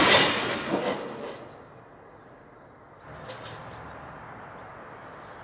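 A sudden scraping clatter that fades over about a second and a half: a KTM Cento 11 Plus e-bike and its rider sliding out on a frozen wooden deck. It is followed by a quiet steady outdoor hiss with a single click about three seconds in.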